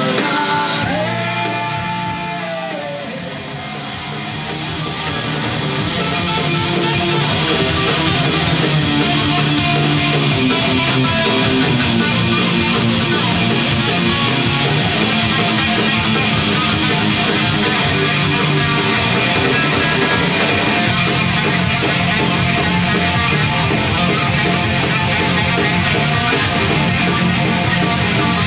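Hard rock band playing live: electric guitar, bass guitar and drums. Near the start the music drops back under a few held notes that bend in pitch, then swells back to full volume within a few seconds.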